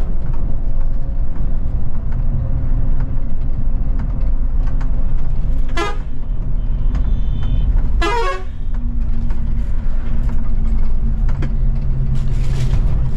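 Scania coach running with a steady low engine drone, while a vehicle horn toots twice: a short toot about six seconds in, then a slightly longer one two seconds later.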